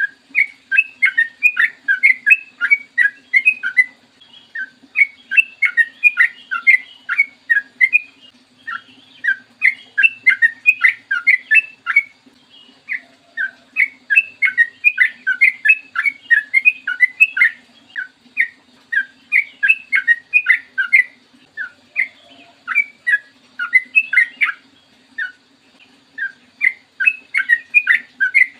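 Sooty-headed bulbul (trucukan) singing long, rapid runs of short, bright notes, phrase after phrase with brief pauses between them.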